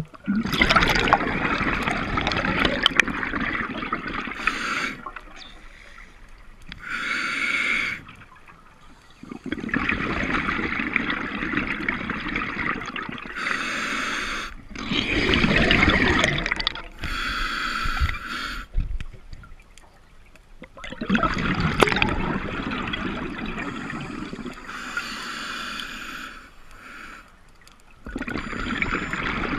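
Scuba diver breathing underwater through a regulator: long bubbling exhalations alternate with short hissing inhalations, about one breath every eight seconds.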